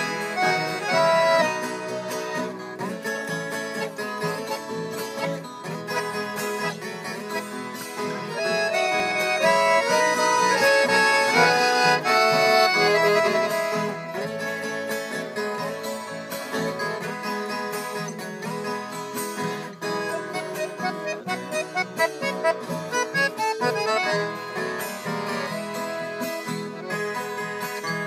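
Instrumental Brazilian country music of the modão sertanejo kind: an accordion playing the melody over plucked guitar.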